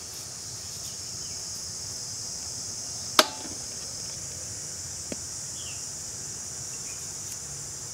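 Steady high-pitched chirring of insects, with one sharp knock about three seconds in, likely a peeled wild mango set down in a steel bowl, and a fainter click about two seconds later.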